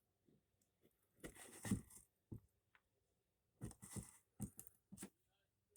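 Faint hand work on a small wooden piece: short scrapes, about a second in and again later, with a few light clicks and knocks.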